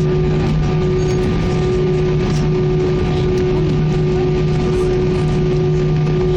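Airbus A319 jet engines running at low taxi power, heard from inside the passenger cabin: a steady hum over a low rumble, with several unchanging tones and no rise in power.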